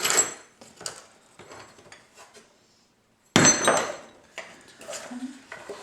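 Old metal hardware from a toolbox clattering as pieces are handled and set down: a clank at the start, light clicks, then a louder metallic clank with a brief ring about three and a half seconds in, followed by more light clicks.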